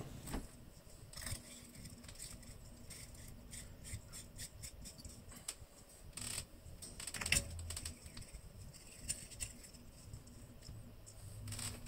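Faint, scattered clicks and light scrapes of hands screwing a threaded pipe into a ceiling light fixture and screwing light bulbs into its sockets, with a few sharper clicks around the middle.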